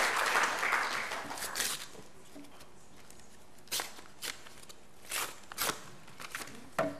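Audience applause dying away over the first second or two, then paper crackling and rustling close to a lectern microphone as an envelope is opened and the sheet inside unfolded, in short separate crinkles about a second apart.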